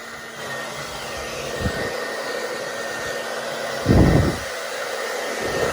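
Hair dryer blowing steadily: an even rushing hiss with a faint, steady high whine. There is a short, louder low rumble about four seconds in.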